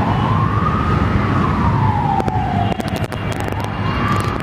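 A siren wailing in slow rises and falls over a low traffic rumble, with a few sharp clicks near the middle.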